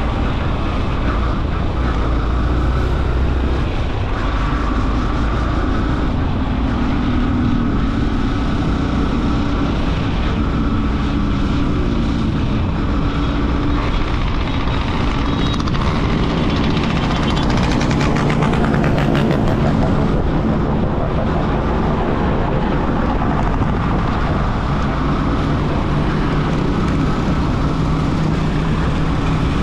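Motorcycle engine running at road speed with wind rushing over the microphone; the engine's pitch drifts up and down as the speed changes.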